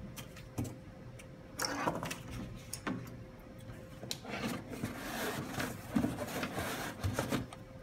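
Cardboard rustling and scraping with scattered knocks as hands dig items out of a shipping box.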